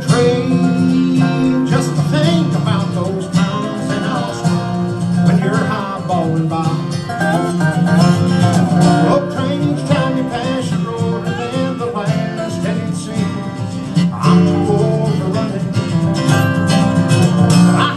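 Live acoustic bluegrass instrumental break, with fast picked lead lines on acoustic guitar and other plucked strings over a steady rhythm.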